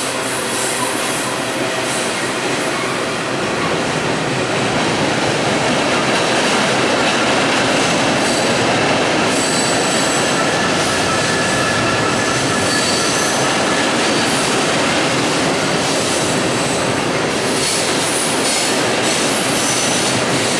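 Freight cars of a mixed manifest train rolling across a steel truss bridge: a steady, loud rumble and clatter of wheels on rail, with thin high wheel squeals at times.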